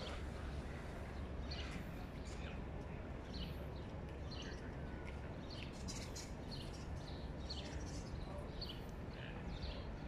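Small birds chirping: many short, high notes repeated irregularly over a steady low outdoor rumble.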